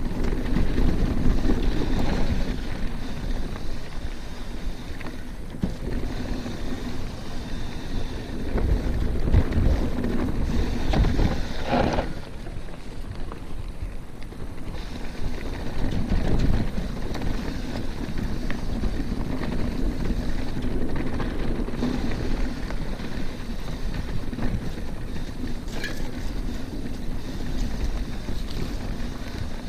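Mountain bike riding down a dirt trail: wind buffeting the GoPro's microphone over the steady rumble of the tyres rolling on dirt and rocks, easing off for a few seconds about twelve seconds in.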